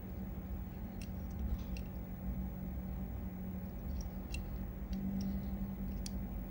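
Small diecast model car handled and turned over in the fingers, giving a scattering of faint light clicks and ticks, in two clusters about a second in and again from about four seconds in, over a steady low hum.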